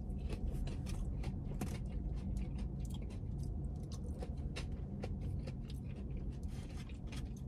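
Close-up chewing of crispy fried cauliflower bites: a quick, irregular run of small crisp crunches, over a steady low hum.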